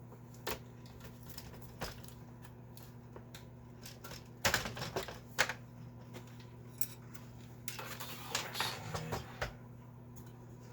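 Scattered clicks and light metallic clattering as the metal heat shield inside an opened Commodore 64 case is handled. There are two busier bursts, about halfway through and again near the end, over a steady low hum.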